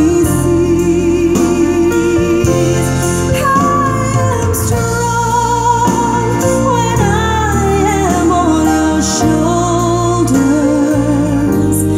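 A song with a singing voice and a steady bass line, played through Victor SX-3 Mark II loudspeakers driven by a Magnet PR-8A class-A preamplifier and MA-5 power amplifier.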